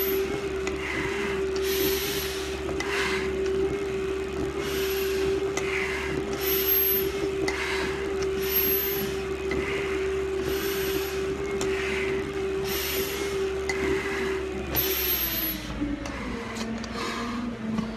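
Heavy breathing through a firefighter's SCBA facepiece during a hard stair climb: a hiss with each breath, about every two seconds. Underneath runs a steady hum that drops in pitch about fifteen seconds in.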